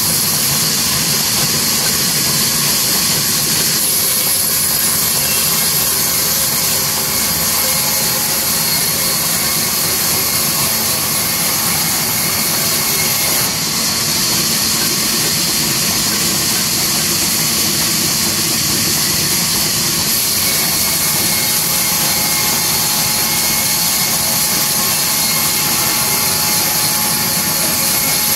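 Large sawmill band saw running steadily while it rips lengthwise through a heavy timber slab: a loud, even hiss of blade in wood over the hum of the machine.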